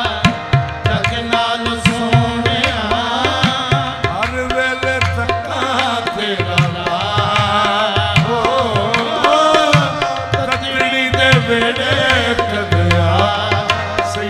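Qawwali ensemble performing a manqabat: harmonium melody and drone over steady tabla-style drumming, with gliding sung lines.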